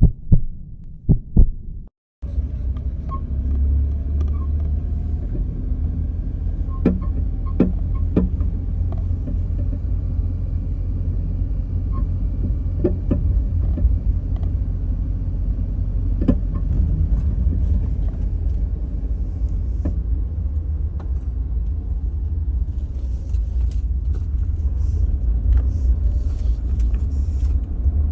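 A few sharp knocks, then, after a brief cut about two seconds in, the steady low rumble of a kei van being driven, with scattered light clicks over it.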